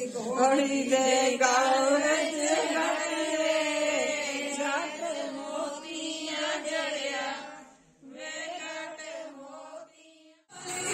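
Women singing a Punjabi wedding folk song together, unaccompanied, in long drawn-out lines. The singing breaks off about eight seconds in, comes back briefly, and stops just before the end.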